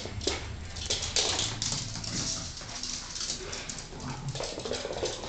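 A Maltese dog jumping about, with a quick run of light knocks and scuffling from its paws landing and scrabbling, and some dog whimpering.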